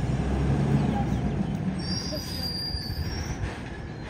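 Garbage truck's engine running low as the truck creeps forward, with a thin high brake squeal about two seconds in, lasting about a second, as it slows to a stop at the bins.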